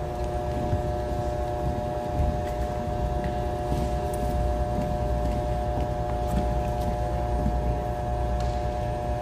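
Steady hum and low rumble of a gymnasium's background noise, with a few faint, scattered clicks of heeled shoes on the floor.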